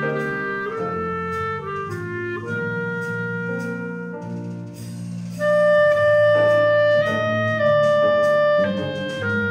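Clarinet playing a jazz-arranged Christmas melody in held notes, over lower sustained accompaniment notes. About halfway through it moves up to a louder high note held for a second or so.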